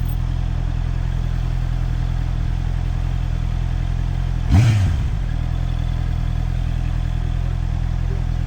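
Motorcycle engine running at steady revs, heard from the rider's helmet camera. About four and a half seconds in there is a brief louder burst, with the engine pitch quickly rising and falling.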